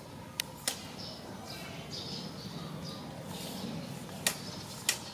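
Baby long-tailed macaques giving repeated short, high-pitched squeaks, with four sharp clicks: two about half a second in and two louder ones near the end.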